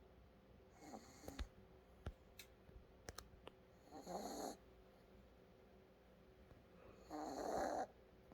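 An animal snoring in its sleep: three snores about three seconds apart, the first faint and the last two longer and louder, with a few faint clicks in between.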